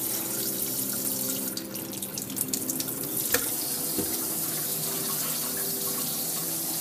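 Kitchen pull-down faucet running water into the sink, a steady rush, with a few light knocks and clicks about two to four seconds in.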